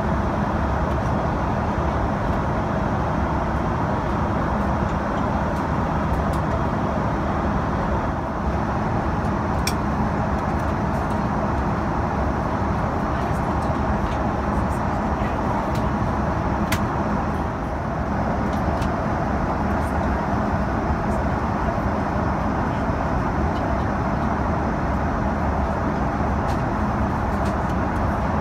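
Airbus A330-300 cabin noise in flight: a steady, even roar of engines and airflow.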